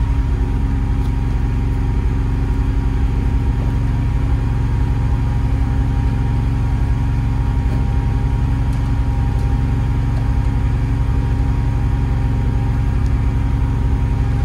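Kohler 20 kW air-cooled natural-gas standby generator running steadily at no load, a constant low hum with a faint steady whine above it, muffled by its sound-dampened housing and an add-on noise enclosure.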